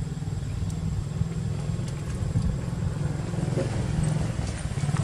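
Small engine idling steadily with a low, rapid putter.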